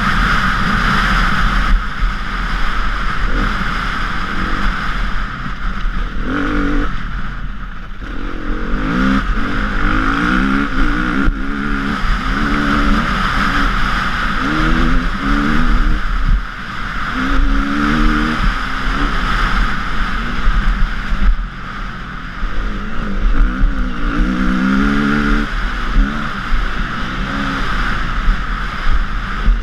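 The single-cylinder four-stroke engine of a KTM EXC 350 enduro bike, heard from a camera on the bike. Its revs climb again and again as it pulls through the gears, over a steady rushing noise.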